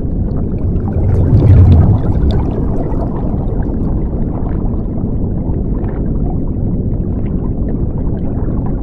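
Underwater bubbling and rushing-water sound effect: a dense low rumble with fine crackles of bubbles, swelling to its loudest about a second and a half in, then running on steadily.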